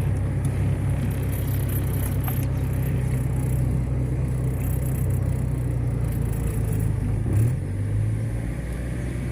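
Chevrolet Corsa being driven, its engine and road noise a steady low hum; the engine note rises briefly about seven seconds in.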